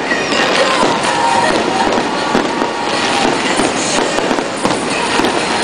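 Fireworks display: a dense, continuous crackling and popping of bursting shells and crackle effects.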